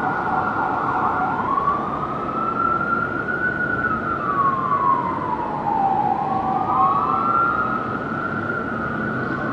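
Fire engine siren on an emergency run, sounding a fast yelp that switches a little over a second in to a slow wail: it rises, falls, and rises again. A steady low rumble runs underneath.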